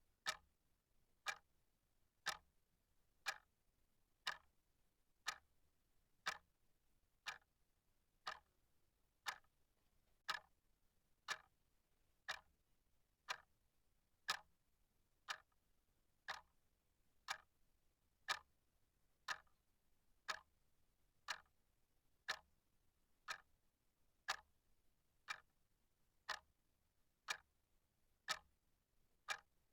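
Clock ticking steadily, one sharp tick about every second.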